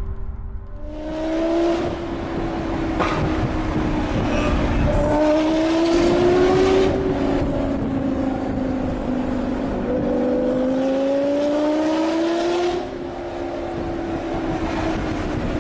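Lamborghini Gallardo Superleggera's V10 with an aftermarket LOC exhaust, heard from a car following behind, accelerating in three long pulls, its pitch rising slowly in each and dropping back between them.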